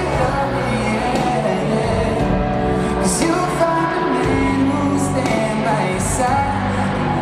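Live band playing a pop-rock song on electric guitars, with a male lead vocal.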